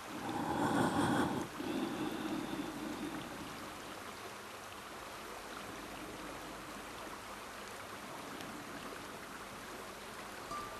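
Steady rush of river water flowing over rocks. A louder, noisier swell over the first three seconds settles into an even hiss.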